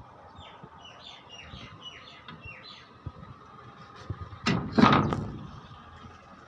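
A bird chirping a quick run of about eight falling notes over a steady machine hum. About four and a half seconds in comes a loud burst of noise, the loudest sound, that dies away over about a second.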